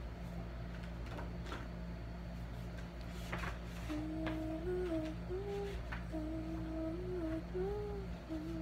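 A girl humming a simple tune, starting about halfway through, over a steady low electrical hum, with a few faint clicks.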